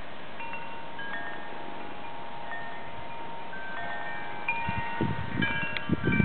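Wind chimes ringing: several steady notes at different pitches, struck one after another and left to ring over each other. From about four and a half seconds in, wind buffets the microphone in gusts.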